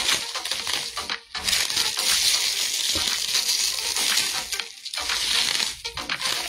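Clear plastic wrap crinkling as it is pulled and unwound from a plastic cup, with short breaks about a second in and again near five seconds.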